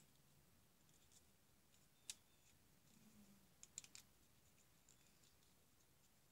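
Faint crinkles and clicks of a paper strip being pinched and folded into a small paper star: one sharp click about two seconds in and a quick cluster of several just before four seconds, otherwise near silence.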